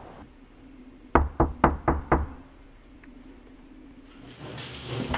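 Five quick knocks on a front door, about four a second.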